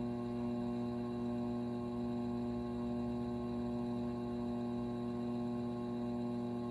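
A steady hum of several held tones that does not change.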